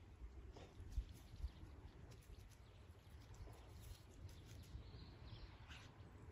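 Faint rustling and pattering of a dog stepping and sniffing through dry leaves and rice stubble, with a few soft low thumps. A brief bird chirp comes about five seconds in.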